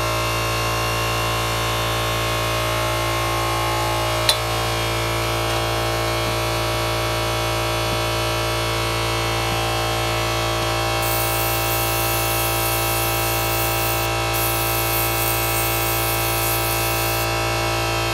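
Small airbrush compressor running with a steady, many-toned hum. The airbrush hisses in two spells of spraying in the second half. There is one sharp click about four seconds in.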